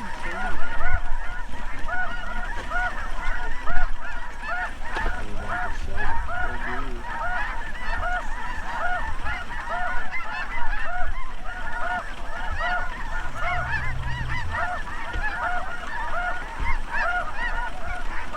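A flock of geese calling: many overlapping honks repeating without a break.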